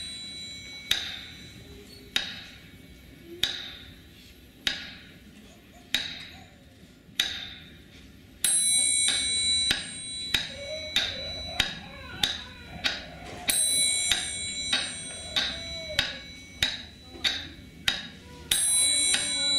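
Percussive music of ringing metallic bell-like strikes at an even beat, about one strike every second and a quarter, doubling in speed about eight seconds in, with a bright high shimmer returning about every five seconds.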